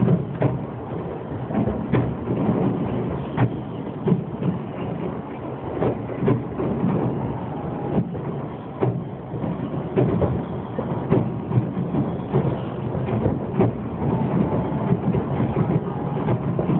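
Fireworks display: frequent sharp bangs of bursting shells, a couple a second, over a continuous rumble of overlapping explosions.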